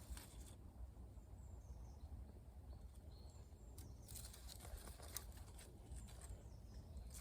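Near silence: faint woodland ambience with a steady low rumble, a few faint high bird chirps and scattered soft clicks.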